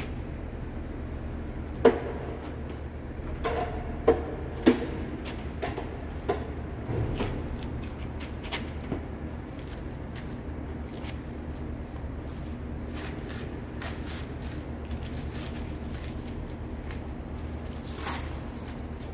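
Sharp wooden knocks and clunks from a block of 2x10 lumber and a metal pipe lever being set and worked under a motorcycle's frame as a home-made lever jack. The loudest are a few knocks about two to five seconds in, and lighter clicks and shoe scuffs on concrete follow. A steady low hum sits beneath.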